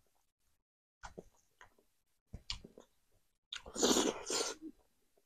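Close-up mouth sounds of a man chewing a mouthful of rice and smoked pork. There are a few short wet clicks, then a louder second of smacking chewing about three and a half seconds in.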